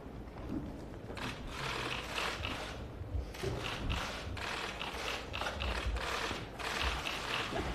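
Press photographers' camera shutters clicking in rapid bursts, several cameras firing at once and overlapping.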